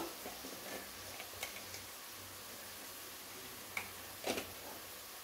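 Quiet kitchen handling while turmeric powder is added to the pressure cooker: a few light clicks and taps, the loudest about four seconds in.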